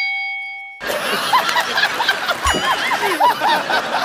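A bell-like ding sound effect rings out and fades during the first second. It is followed by a run of high-pitched laughter from several overlapping voices.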